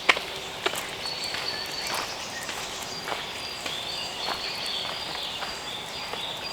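Footsteps on dry leaves and a forest path, about one step every half second to second, the sharpest crack right at the start. Birds sing high, thin, held notes over the steps.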